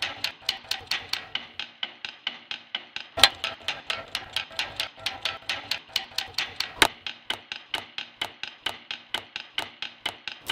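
A steady rhythm of sharp clicks, about five a second, with two louder knocks, one about three seconds in and one about seven seconds in.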